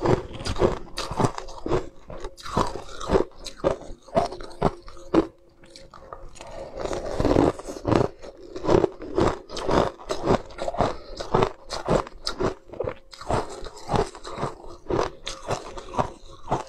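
Ice being bitten and chewed with a run of close, repeated crunches, a brief lull partway through, then steady crunching again.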